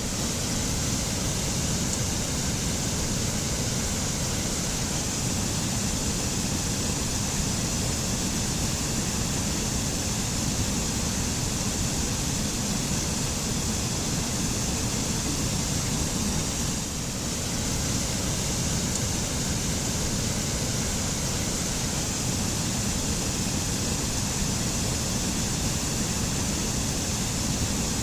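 Waterfall rushing steadily, an even wash of falling water with a deep low rumble and a bright hiss, dipping slightly for a moment about two-thirds of the way through.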